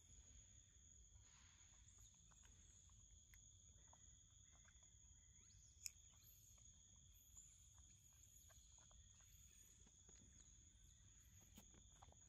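Near silence with a faint, steady high insect drone at two pitches, like crickets or cicadas in forest, and scattered soft ticks, with one sharper click about six seconds in.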